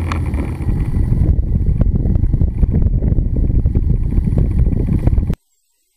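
Wind buffeting the microphone over the rumble of a vehicle in motion, the sound of a dashcam riding in traffic. It cuts off suddenly a little over five seconds in.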